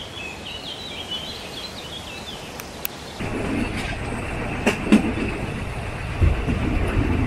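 Birds chirping over quiet background, then from about three seconds in the ride noise of a narrow-gauge railway carriage: steady rumbling of the wheels with a few sharp clacks over rail joints.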